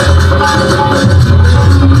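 Live qawwali music: a harmonium holding steady chords over a driving hand-drum rhythm.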